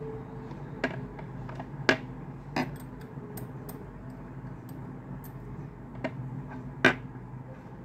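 Small plastic paint jars and a thin stick being handled on a tabletop: a few sharp, scattered clicks and taps, the loudest near the end, over a low steady hum.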